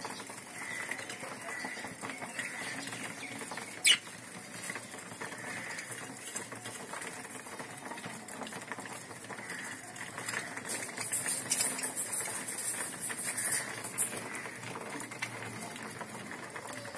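A flock of budgerigars chattering and chirping softly while they feed on seed, with one sharp click about four seconds in and a louder, high, scratchy stretch from about eleven to fourteen seconds in.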